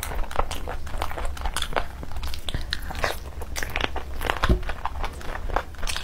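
Close-miked eating: biting and tearing curried meat off the bone and chewing it, heard as many irregular sharp mouth clicks and crunches, several a second.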